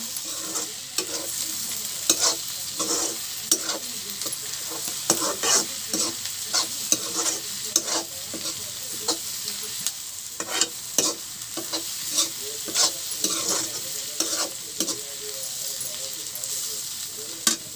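Sliced onions and potato cubes sizzling as they fry in oil in a kadhai, while a slotted spatula stirs and scrapes against the pan, a stroke every second or so.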